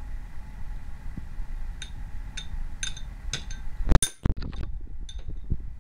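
Small metal spoon striking a clear bowl and high-chair tray, a baby banging it: a few ringing clinks, then a much louder knock about four seconds in, followed by several lighter taps.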